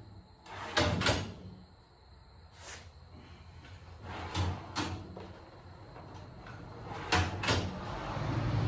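Steel tool-cabinet drawers of a U.S. General Series 3 side locker being slid open and shut, with a string of sharp metal knocks and clunks, several in close pairs.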